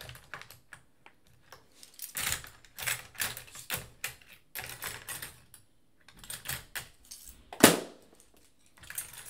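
Irregular clicking and clattering of small tools and parts being picked up and set down on a workbench mat as someone searches for a tool, with one louder sharp knock about three-quarters of the way through.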